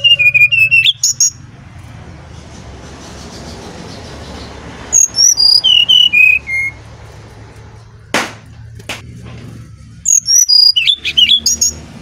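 Brown-chested jungle flycatcher singing its loud, flute-like whistled song: three phrases about five seconds apart, each a quick run of clear notes mostly stepping down in pitch.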